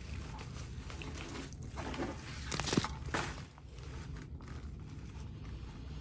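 Rustling and crinkling from hands working chenille stems and artificial flowers on a wire wreath frame, with a brief louder crinkle and a sharp click about three seconds in.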